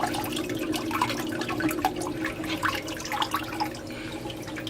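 Water splashing and trickling as a homemade oxygenation pump, built from a washing-machine drain pump, circulates water through pipes into a paint bucket, over a steady low hum from the running pump.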